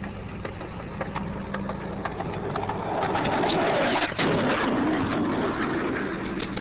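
Skateboard wheels rolling over rough asphalt, a gritty rumble that grows louder and closest about halfway through.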